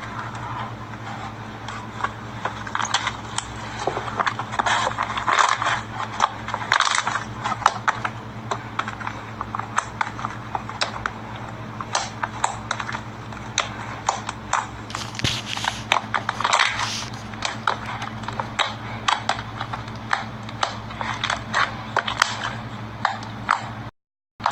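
Slime being squeezed and kneaded by hand, giving a dense run of small clicks, pops and crackles, over a steady low hum. The sound breaks off into a moment of silence just before the end.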